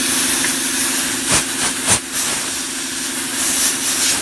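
Compressed-air blow gun hissing as it blows sanding dust off the tank surface, with two sharp louder blasts of air about one and a half and two seconds in. A steady low hum runs underneath.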